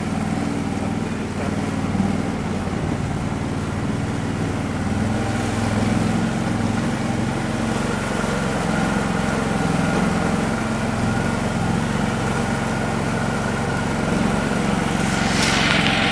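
Argo HDI 8x8 amphibious ATV's Kohler diesel engine running at a steady cruising speed as the machine moves through swamp water on its tracks. Near the end a rush of noise joins it.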